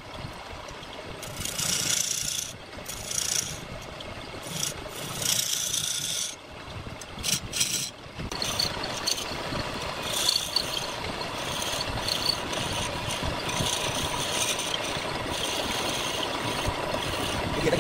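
A hand-held turning chisel scraping a spinning wooden spindle on a lathe, with the lathe running underneath. The scraping comes in short bursts over the first few seconds, then runs more steadily from about eight seconds in.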